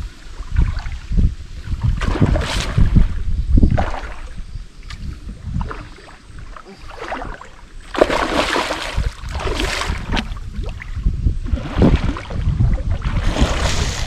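Wind buffeting the microphone over water splashing around a canoe, coming in irregular surges; the loudest are about eight to ten seconds in and near the end.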